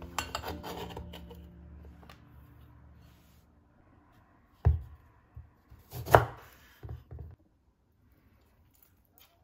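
Chef's knife working on a wooden cutting board: a quick run of taps and scrapes in the first second or two as diced celery is scraped off the blade, then a few separate knocks, the loudest about six seconds in as the knife cuts a lime in half against the board.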